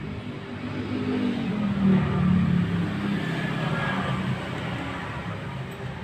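Maktec MT90 angle grinder's motor running with a rough growl, speeding up about a second in and then running on steadily; the growl is the noise that the title puts down to a burnt armature.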